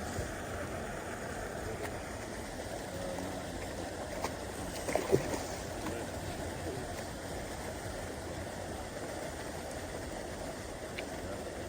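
Steady outdoor background noise with a few short knocks near the middle, the loudest about five seconds in.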